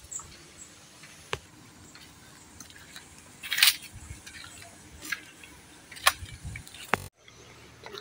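Footsteps and phone handling while walking on a sandy path: scattered sharp clicks and knocks, with a brief rustling scrape about three and a half seconds in. The sound cuts off suddenly just after seven seconds.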